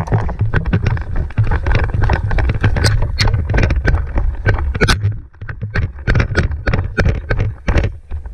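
Rapid, irregular footfalls and rattling gear of a player moving quickly, heard close on the camera over a constant low rumble of wind and handling noise on the microphone.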